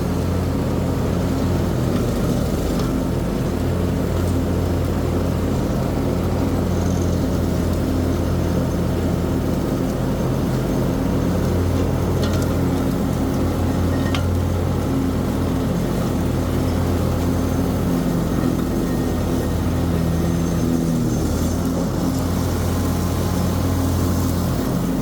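Large diesel engine of harvest machinery running steadily under load, a constant deep drone with small changes in pitch.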